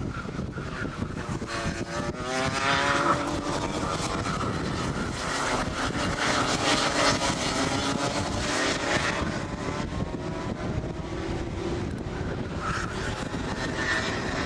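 Rotax 125cc two-stroke kart engines racing around the circuit, several at once. Their buzzing note rises and falls as the karts accelerate out of the corners and lift off into them.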